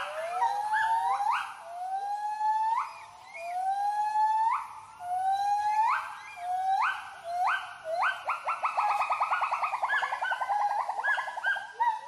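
White-handed gibbons giving their territorial hooting call: a series of rising whoops, one every half second or so. About eight seconds in they speed up into a fast run of short hoots, about ten a second, then slow again near the end.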